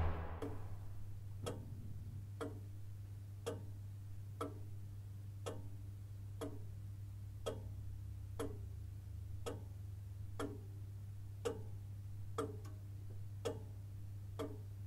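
A clock ticking steadily, about one tick a second, over a low steady hum.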